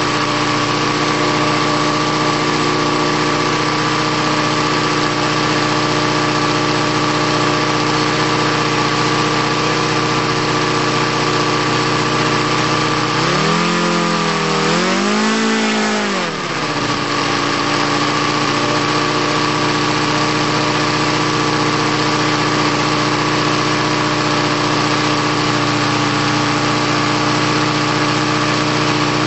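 ASP FS400AR five-cylinder four-stroke radial model aircraft engine running steadily on its first run. About halfway through it is revved up and back down twice in quick succession, then settles back to a steady run.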